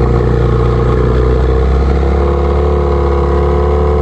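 Boat's outboard motor running steadily, its engine note shifting slightly about halfway through.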